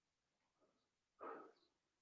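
A person breathing hard from exertion: a faint breath about half a second in, then a louder, heavier exhale just past a second in.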